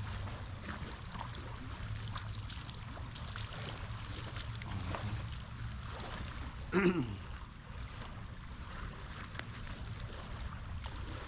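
Creek water running steadily past the bank. About two-thirds in comes one short, loud cry that falls in pitch.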